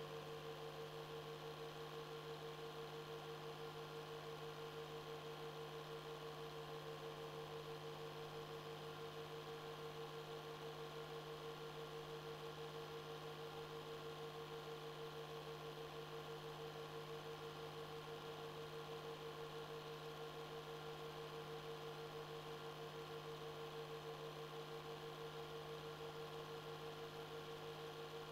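Faint steady electrical hum with a constant mid-pitched tone and light hiss, unchanging throughout; no film soundtrack is heard.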